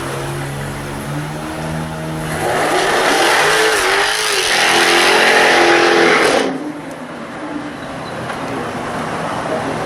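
Jaguar F-Type R's supercharged V8 engine running low, then revving hard and loud from about two seconds in, with the pitch rising and falling. It cuts off sharply a little past the middle, and a lower engine sound carries on after that.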